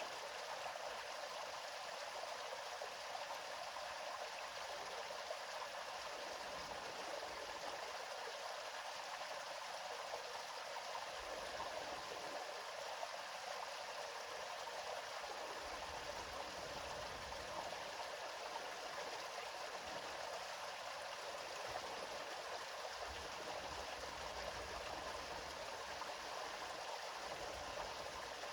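Flowing river water rushing steadily, an even hiss with no breaks.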